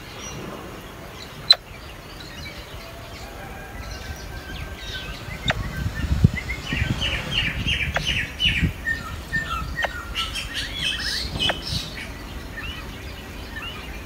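Blackbird nestlings begging with rapid runs of high, repeated chirps in two spells while the adult feeds them, over low rustling thumps from the nest. A single sharp click comes about a second and a half in.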